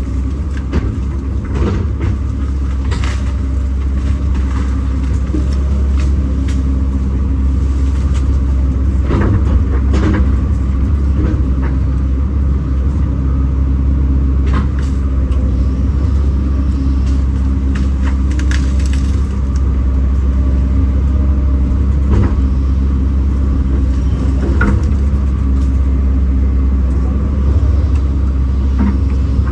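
Kobelco SK210 excavator's diesel engine running steadily under a heavy low hum, with scattered knocks and cracks from the machine at work.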